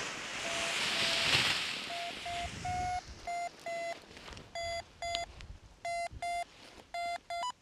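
Paragliding variometer beeping in short, same-pitched tones about twice a second, the beeping that signals the glider is climbing. Wind noise swells over the first second or two and then fades. Near the end one beep slides up in pitch.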